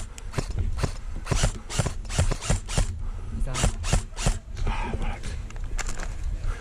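Quick, irregular run of sharp clicks and knocks, several a second, with a brief voice about five seconds in.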